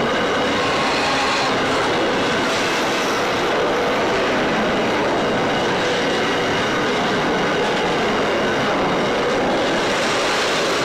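Container flat wagons of an intermodal freight train rolling past at steady speed: a continuous noise of steel wheels running on the rails.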